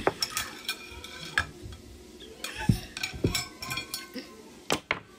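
Cutlery and hands knocking and scraping on a plate of food: an irregular run of clicks, scrapes and a few sharp clinks as food is picked up and the utensils are shifted.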